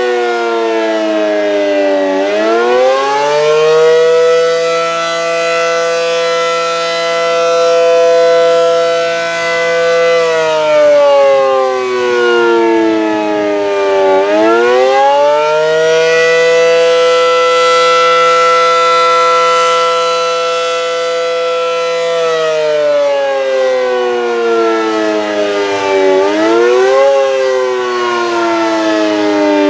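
ACA Allertor 125 electromechanical tornado siren sounding the attack signal: one loud tone that winds up, holds steady for about six seconds, then falls and winds up again, repeating about every 12 seconds.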